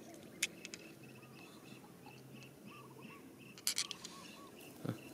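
Faint bird calls, small chirping notes repeated every fraction of a second over a low repeated note, with a few sharp clicks, a quick cluster of them a little before the end.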